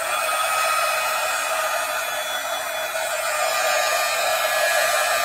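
Small handheld hair dryer running steadily, blowing air across wet watercolour paper to dry it: an even rush of air with a faint high motor whine.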